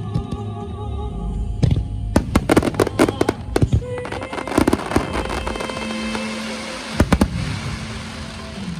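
Firework shells bursting in the sky, sharp bangs in a quick cluster about two to three and a half seconds in and a close pair about seven seconds in, over a song's music.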